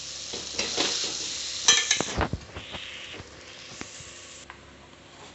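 Metal spatula scraping and stirring thick cooked masala stuffing around a metal kadhai, with a light sizzle. A few sharp scrapes come in the first two seconds, the loudest near the end of them, and then it quietens.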